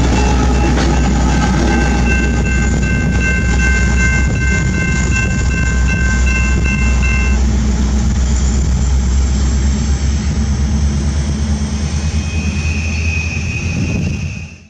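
Freight train with diesel locomotives passing, with a heavy, steady low rumble of engines and rolling cars. A high ringing tone, broken into quick repeats, sounds over it for roughly the first seven seconds. The sound drops away abruptly at the very end.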